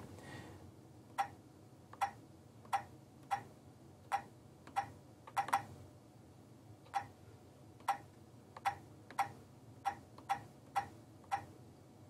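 Stylus tapping keys on the touchscreen keyboard of a Keyline electronic key machine console, with about sixteen short clicks at an uneven typing pace of one or two a second.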